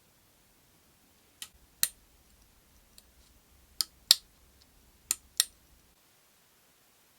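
Six sharp clicks in three close pairs, about a third of a second apart within each pair, with the second click of each pair the louder.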